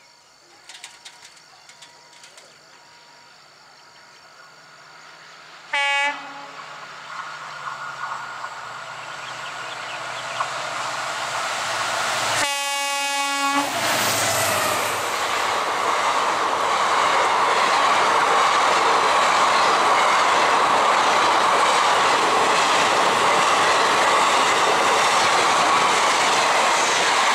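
WDP-4D diesel locomotive with EMD engine approaching at speed, sounding a short horn toot about six seconds in and a longer horn blast about halfway through. It then passes with its coaches, growing louder into a loud, steady rush of wheels on rail.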